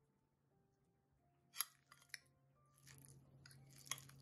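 A metal spoon clicking and scraping against a ceramic bowl and plate as guacamole is scooped and spread. There are a few sharp clicks, one about a second and a half in and a few more near the end.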